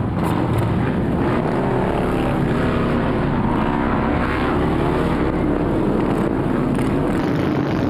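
A group of Harley-Davidson motorcycles pulling away together, their V-twin engines running loud and revving up and down as they accelerate past.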